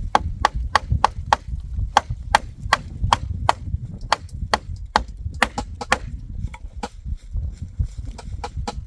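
Hammer driving nails into a wooden coop frame: quick, regular strikes at about three a second, each with a short metallic ring, pausing briefly about seven seconds in before picking up again.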